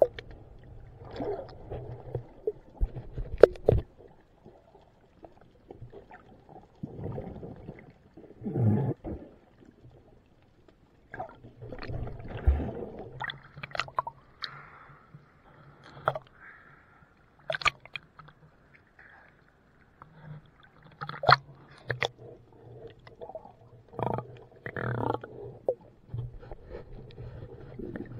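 Water heard from inside an action camera's waterproof housing as it moves underwater and breaks the surface, a muffled sloshing and gurgling that comes in irregular swells. Scattered sharp clicks and knocks are heard against the housing.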